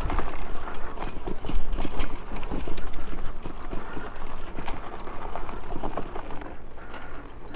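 Meelod DK300 Pro e-bike climbing a bumpy dirt hill under pedal assist: irregular knocks and rattles as the bike jolts over the ground, over a steady rush of tyre and trail noise.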